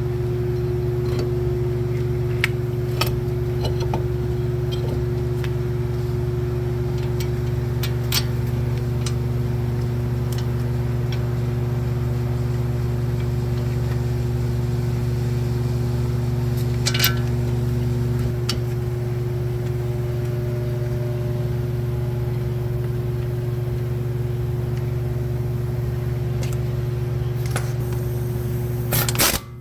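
A steady low mechanical hum with a few faint steady tones in it, broken by occasional light metallic clicks and taps of tools and brake parts being handled. The hum cuts off abruptly near the end.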